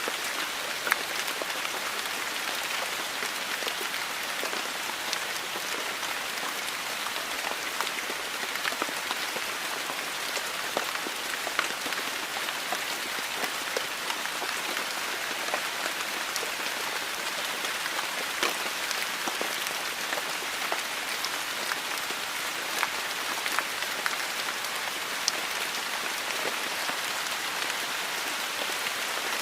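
Heavy rain falling steadily, a dense even hiss with many individual drops ticking on a surface.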